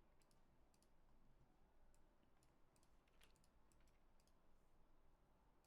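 Near silence with faint, scattered clicks from a computer's mouse and keys.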